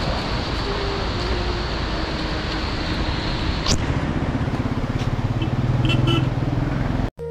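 A motor vehicle's engine and road noise while driving, the low engine note growing louder about four seconds in; the sound cuts off suddenly near the end.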